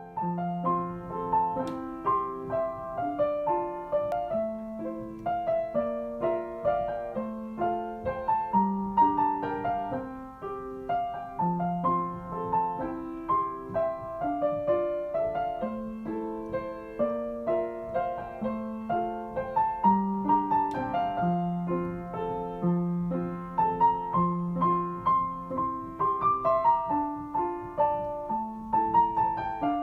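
Background piano music: a gentle melody of sustained notes over a steady low accompaniment.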